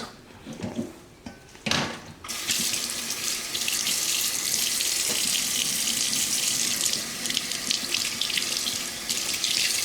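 Kitchen sink tap turned on about two seconds in, after a short knock, then water running steadily into the sink as something is rinsed.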